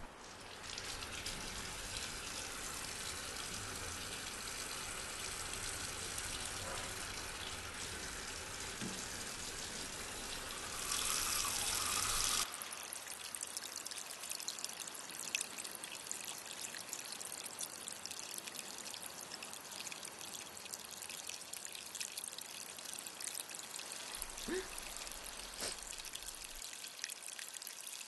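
Tap water running into a washbasin and splashing over a hand, a steady rush that grows louder near twelve seconds in. It then changes abruptly to a thinner splashing trickle with many small drips and ticks.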